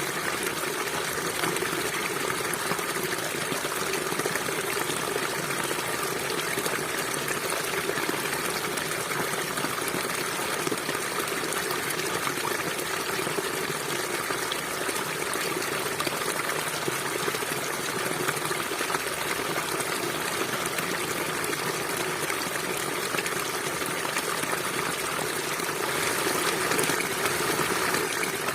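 River water flowing and gushing steadily over rocks, with a slight swell near the end.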